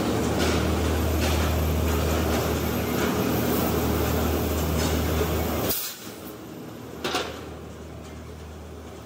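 A machine motor runs with a steady low hum, then cuts off suddenly a little under six seconds in. A single knock follows about a second later.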